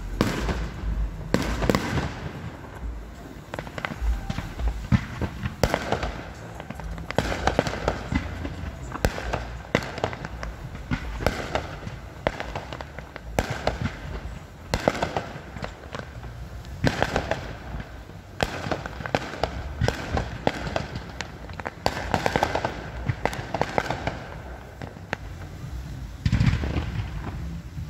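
Fireworks finale: aerial shells bursting one after another in a dense barrage, with many bangs in quick succession.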